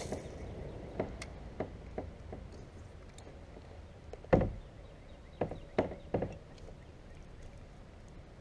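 Knocks and thumps on a plastic kayak hull as the angler casts and works his rod and reel: about nine separate knocks at irregular spacing, the heaviest, deepest thump about four and a half seconds in.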